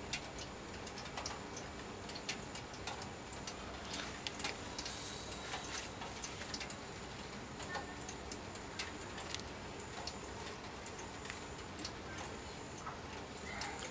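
Water leaching out of the bottom of a chamber of untreated pure sand and dripping onto a metal tray: quick, irregular ticks. This is the fast drainage that wastes irrigation water in plain sandy soil.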